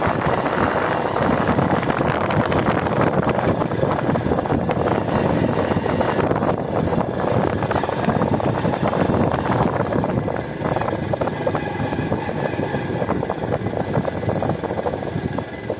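Steady wind rush and engine and road noise of a moving motorcycle, heard from the pillion with wind buffeting the phone's microphone.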